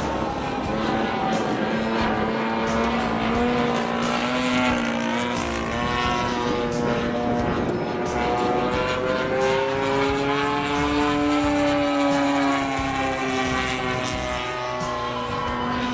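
Radio-controlled Zlin 50LS model aircraft in flight, its 40cc MVVS two-stroke petrol engine and propeller buzzing continuously. The pitch bends up and down as the plane manoeuvres and passes, highest about ten to twelve seconds in, then dropping.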